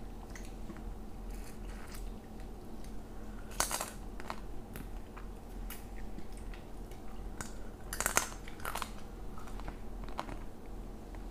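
Close-miked eating sounds: chewing and crunching, with small clicks throughout and two sharp cracks, about four seconds and eight seconds in.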